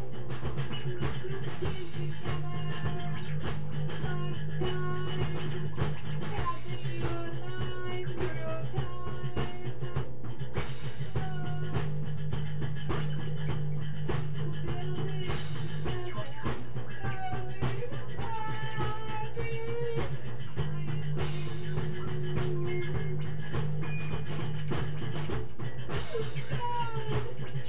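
Live rock jam: a steady drum beat with guitar playing a wandering melody over held low bass notes that come and go every few seconds.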